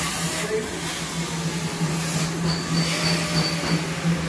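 Steady hum and rushing noise of running workshop machinery, with a thin high whine for about a second past the middle.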